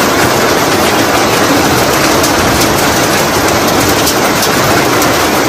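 Rain falling steadily: a loud, even hiss.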